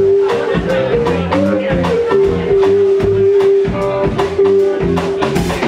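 Live blues band playing: electric guitars, bass and drum kit keep a steady beat while a lead line holds long, sustained notes.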